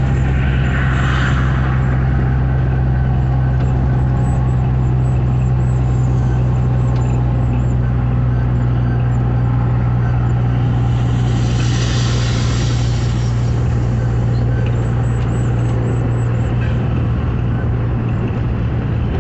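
Vehicle engine running steadily at cruising speed, a constant low hum heard from inside the cab over tyre and road noise. A rush of hiss rises and fades about twelve seconds in.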